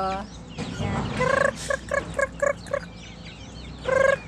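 Backyard chickens calling: a longer note about a second in, then a quick run of about five short clucks, and another longer note near the end, with smaller high peeps in the background.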